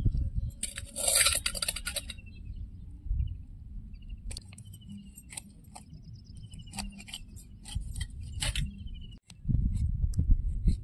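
Knife scraping a piece of snakehead fish, with one loud, long scrape about a second in and scattered light clicks and scrapes of the blade after it. A repeated series of short high chirps sounds in the background. Near the end the sound cuts to a steadier low noise.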